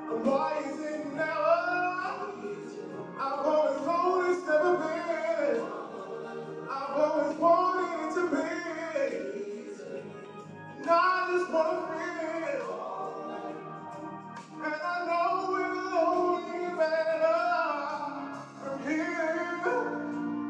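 Live singing with musical backing: a vocalist sings long, sliding phrases over sustained accompanying tones.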